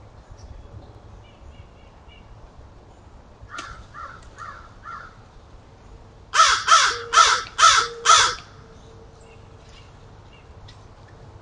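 Crow cawing: four fainter caws a few seconds in, then a series of five loud, harsh caws in quick succession.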